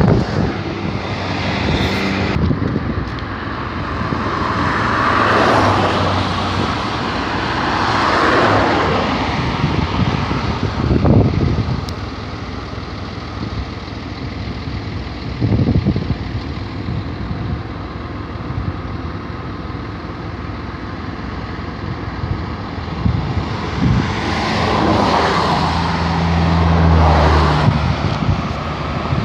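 Road traffic: several vehicles pass one after another, each swelling and fading. A vehicle with a low engine note passes near the end.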